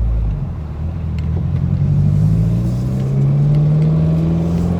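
Subaru WRX's turbocharged flat-four running through a non-resonated Remark exhaust midpipe, accelerating under throttle. Its exhaust note climbs steadily in pitch from about a second and a half in.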